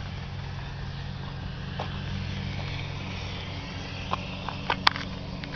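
Steady low engine hum, with a few sharp clicks about four to five seconds in.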